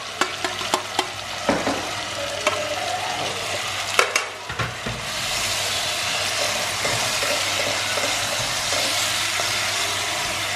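Chicken pieces tipped into a cast-iron pot of sautéing onion, carrot and garlic, with a few sharp clinks and knocks of metal tongs in the first four seconds. From about five seconds in, a steady sizzle, louder than before, as a wooden spoon stirs the pot.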